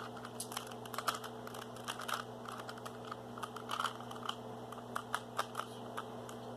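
Plastic Rubik's Cube layers being twisted by hand: a fast, irregular run of small clicks and clacks, over a steady low hum.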